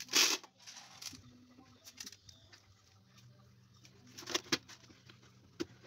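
A short rush of coarse salt mixture pouring into a plastic bucket, followed by a few scattered knocks and rustles as salted fish are handled and laid into the bucket. A steady low hum runs underneath.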